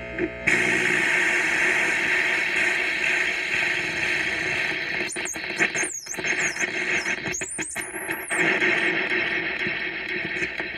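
Touch-controlled DIY noise synth, an Atari Punk Console-style circuit with built-in echo, played by fingers bridging its metal contacts. A wall of static hiss switches on about half a second in, and high squealing tones swoop up and down through the middle.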